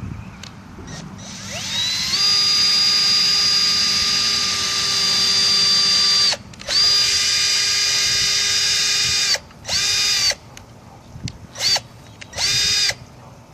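Electric drill motor spinning up to a steady whine and running for about five seconds. It stops for a moment, runs about three seconds more, then comes in a few short trigger bursts.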